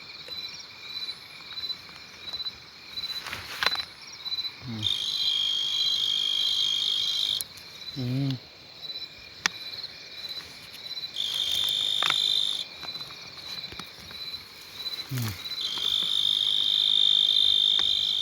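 Insects calling in the field: a constant high trill throughout, overlaid three times by a louder steady high buzz. The buzz runs for about two and a half seconds starting about five seconds in, for a second and a half around eleven seconds, and again from about fifteen seconds to the end. A few brief low calls come in between.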